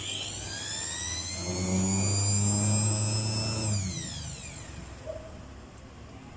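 Mixer grinder's electric motor spinning up to a high whine, running steadily for about two seconds with a low hum underneath, then winding down to a stop.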